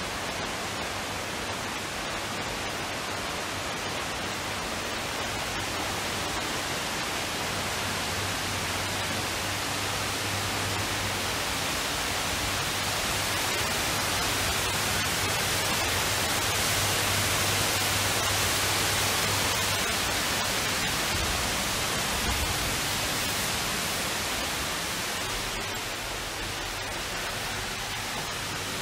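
Steady rushing of falling water from a large indoor waterfall, growing louder toward the middle and then easing off, with a low hum under it for a while.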